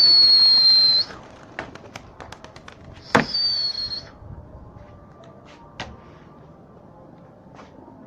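A pigeon keeper's sharp whistle, given twice, about three seconds apart, each a long high note sliding slightly down in pitch, the call used to send pigeons up to fly. Scattered sharp clicks sound between and around the whistles.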